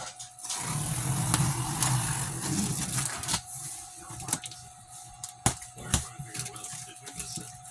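Cardboard shipping box being opened by hand: a rough tearing and scraping for about three seconds, then a few sharp clicks and knocks as the box is handled.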